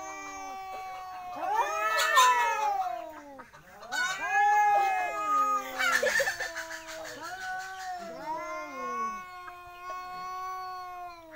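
Two domestic cats yowling at each other in a fight standoff. Their long, wavering caterwauls overlap almost without pause, rising and falling in pitch. They are loudest about two seconds in and again around four to six seconds.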